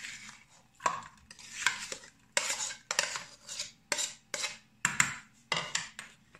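A metal spoon scraping and clinking against a plate and a small aluminium saucepan as soft curd cheese is spooned into the pan: a string of short, irregular clinks and scrapes about twice a second.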